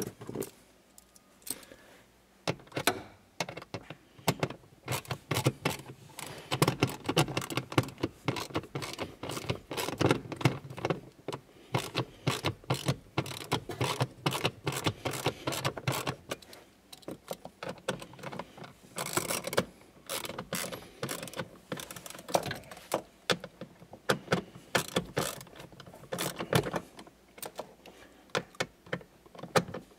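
Runs of rapid mechanical clicking from a socket ratchet driving in the blower motor resistor's 8mm bolts, along with clicks and knocks of plastic wiring connectors being handled. The clicking is packed densest in two long stretches, with a short lull between them.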